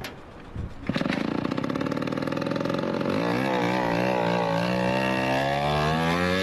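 A motor engine starts about a second in with a fast pulsing sound, then settles into a steady run whose pitch wavers up and down.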